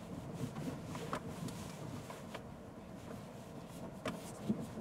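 Faint low rumble of tyres rolling slowly over a rocky dirt trail, heard inside the cabin of an electric Rivian R1T pickup, with no engine sound. A few light clicks come through now and then.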